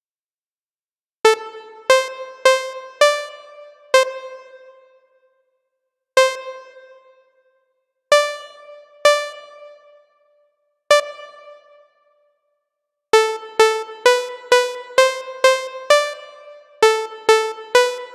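Synthesizer notes from FL Studio's Wasp synth, each starting sharply and dying away over a second or two, at a few slightly different pitches. At first they sound one at a time with pauses between them. From about thirteen seconds in they run in a quick repeating pattern of about two notes a second.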